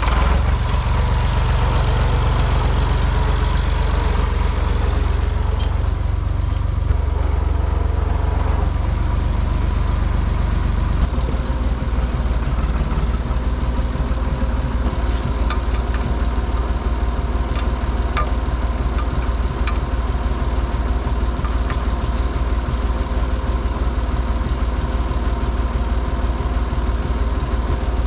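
International farm tractor engine running steadily; its note drops about eleven seconds in, as if throttled back toward idle.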